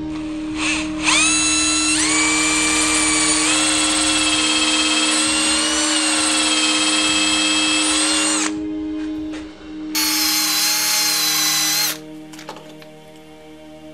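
Electric hand drill spinning up and boring into a cherry log with a twist bit, the motor whining steadily for about seven seconds before stopping. A second, shorter run at a higher pitch follows about ten seconds in.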